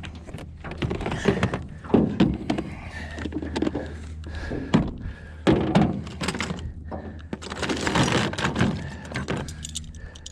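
Irregular thunks, knocks and clatter in a fishing boat while a just-landed bass is handled and unhooked with pliers, the loudest knocks about two, five and eight seconds in.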